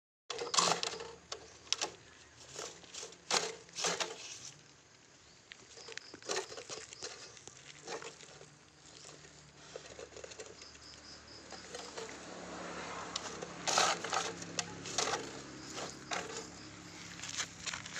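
Irregular pattering, scratching and rattling as dogs nose and paw around a plastic cage with a wire-mesh end that holds a rodent, in short uneven clusters of clicks.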